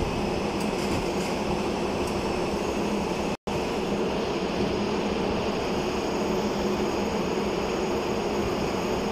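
Steady, loud machinery drone of a ship's engine room with a constant low hum, typical of running diesel generators. The sound drops out briefly about three and a half seconds in.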